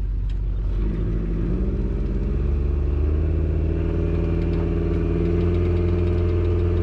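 An engine running steadily; its speed picks up slightly about a second in and then holds.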